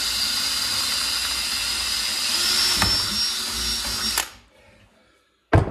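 Cordless drill with a 15/64-inch bit boring a hole through a Ski-Doo snowmobile ski and a clamped template, running steadily, then stopping abruptly about four seconds in. A sharp knock follows just before the end.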